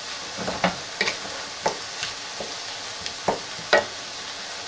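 Mushrooms, onions and butter sizzling over high heat in a square pan, with a wooden spatula scraping and knocking against the pan about five times as they are stirred. The butter is melting into the sautéed vegetables.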